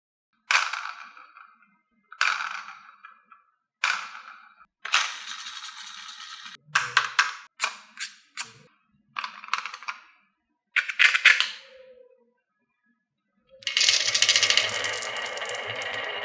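Marbles clacking and rolling down a wooden HABA marble run: three sharp clacks about a second and a half apart, a short roll, then a flurry of rapid clacks. After a brief pause, a steady rolling rattle starts near the end.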